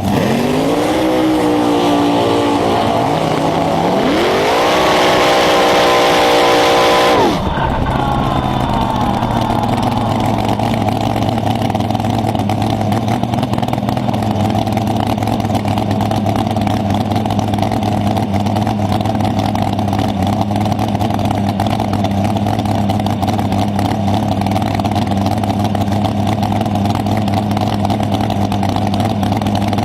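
Dragster engine revving twice, held high on the second rev, then the throttle snaps shut about seven seconds in and it settles to a steady, lumpy idle.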